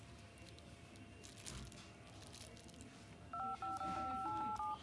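Keypad tones of a Tecno Spark 2 smartphone as digits are tapped on its dial pad: a quick run of four or five touch-tone beeps lasting about a second and a half, near the end.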